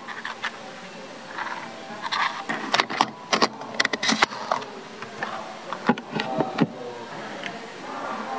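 Rolls-Royce fuel filler cap being turned and screwed shut by hand, giving a run of sharp clicks about three to four seconds in and a few more around six seconds.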